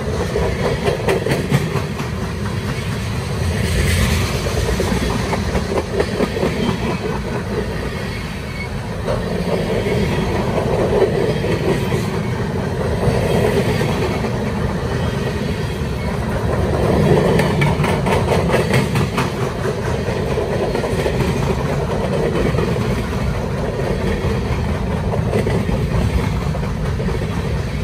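Freight cars of a manifest train rolling past close by: a steady rumble of steel wheels on the rails, with rapid clicking as the wheels run over the track.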